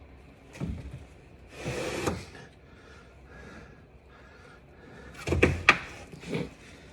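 Hand tools and small car parts being handled during work on a starter's wiring: a few separate knocks and clicks, a short scraping rustle about two seconds in, and a cluster of sharp clicks near the end.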